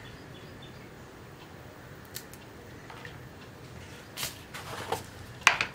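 Quiet room tone with a steady low hum, then a few soft clicks and rustles of hands handling kitchen things near the end, the sharpest just before it ends.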